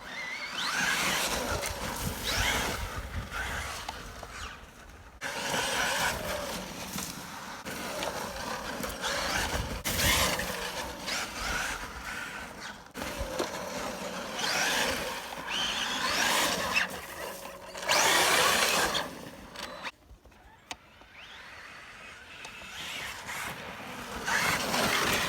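Electric RC car driving hard on a dirt track: its motor whines up and down in repeated bursts of acceleration and braking, with tyres scrabbling over the ground. The sound drops away for a couple of seconds about twenty seconds in, then picks up again.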